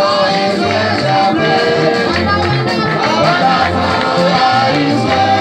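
Loud, lively church dance music with singing over a bass line that steps from note to note.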